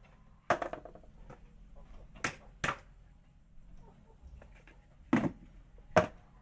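Hollow plastic knocks and clatters as a plastic bucket and a plastic lid are handled and the lid is set down on top of the bucket: five separate knocks, the loudest the last, about six seconds in.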